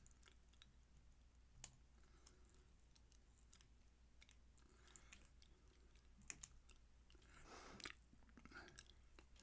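Faint, scattered small clicks and scrapes of a lock pick and tension wrench working the pins of a small Eagle padlock.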